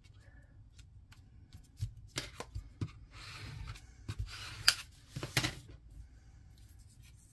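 Cardstock pieces being handled by hand on a cutting mat: light paper taps and clicks with stretches of paper sliding and rubbing in the middle, the sharpest tap a little past halfway.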